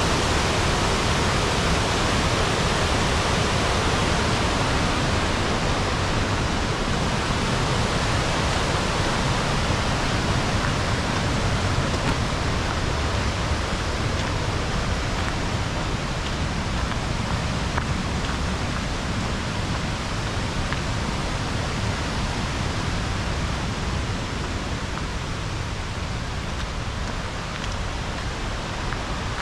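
Steady rush of falling water from a waterfall, a constant roar with no distinct events, easing slightly in the second half.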